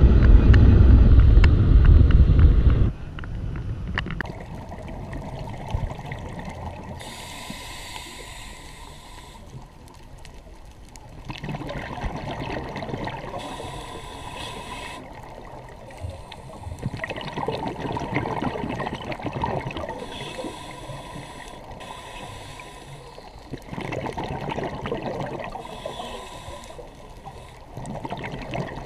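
Loud low wind and road rumble from a moving car for about the first three seconds. Then comes muffled underwater sound through a GoPro housing: scuba regulator bubbles gurgling in bursts every few seconds as the diver breathes out.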